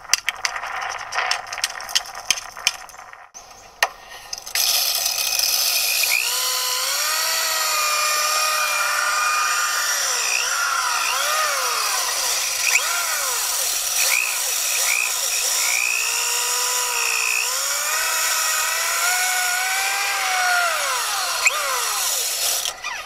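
Metal clicks and scraping as the cap is worked loose from a creosote-stuck stovepipe flue. From about five seconds in comes a steady scraping rush, with a motor whine that rises and falls in pitch: a drill-driven chimney brush spinning on its rod inside the metal flue pipe, scouring out creosote.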